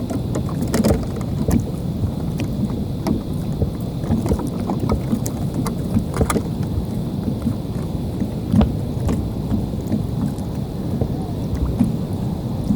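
Steady low rumble of sea water and wind around a fishing kayak, with scattered small knocks and clicks from handling gear on the hull.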